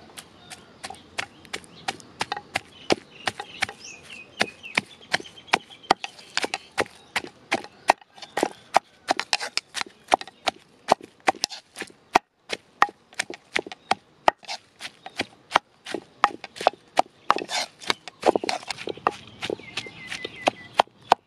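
Wooden pestle pounding grilled eggplant, shallots, garlic and chilies in a clay mortar: a steady run of dull knocks, about three a second, with faint birdsong behind.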